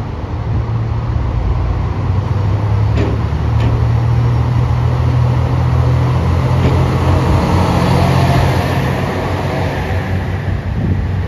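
Kiya 141 two-car diesel inspection train pulling away from the platform, its diesel engines running with a steady low drone. Two sharp clicks come about three seconds in. The sound swells as the cars pass and fades near the end as the last car clears.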